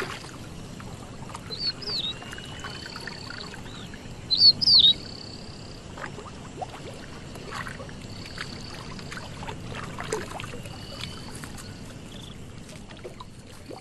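Wild birds calling, with thin high whistled notes and short sharp chirps, the loudest a quick pair of chirps about four and a half seconds in. Underneath is a low steady outdoor ambience with faint splashes from spotted hyenas wading in shallow water.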